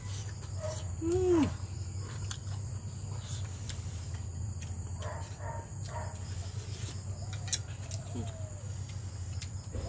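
Outdoor rural ambience: a steady high insect drone over a low steady hum, with a short rising-and-falling animal call about a second in, a fainter falling call near the end, and a few light clicks.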